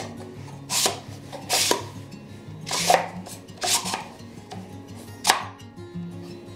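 Plywood blast-gate shutters slid open and shut by hand in their wooden box: five short wooden scrapes and knocks, with soft background music underneath.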